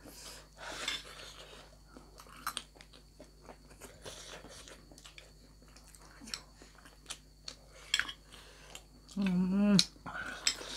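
Close-up eating sounds: chewing with scattered small clicks and smacks of wet food. A brief vocal sound breaks in about nine seconds in.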